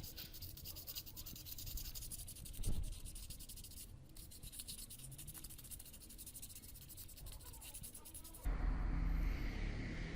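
Light, rapid rubbing and scratching strokes on a hard surface, the kind made by hand abrasive work. About eight and a half seconds in it cuts abruptly to a louder, steadier low noise.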